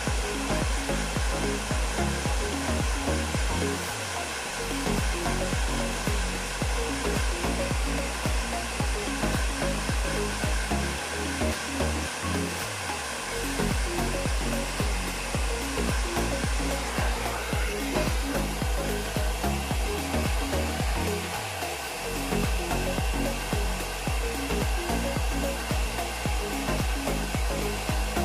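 Electric blower running steadily: a continuous rush of air without a break, with a low, choppy rhythmic rumble underneath.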